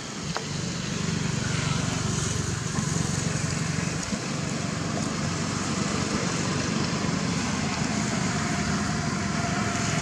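A motor engine running steadily, growing louder about a second in and then holding an even hum.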